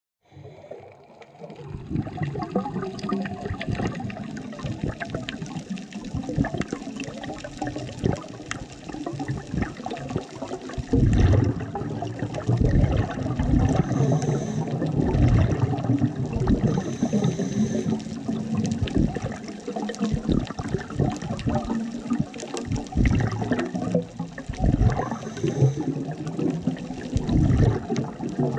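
Underwater sound on a dive: muffled rushing and gurgling of a diver's exhaled bubbles, growing louder in irregular surges every few seconds.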